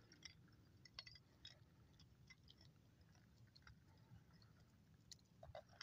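Near silence, broken by a few faint, scattered clicks and ticks.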